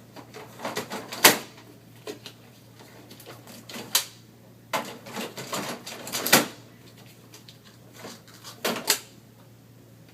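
Toner cartridges being slid out of and pushed back into an HP LaserJet 3500 colour laser printer: a handful of sharp plastic clicks and knocks with short sliding scrapes between them.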